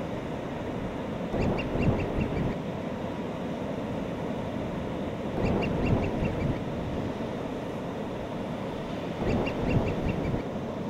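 Surf breaking in a steady wash, with gulls calling in short runs of quick, high notes, three times about four seconds apart.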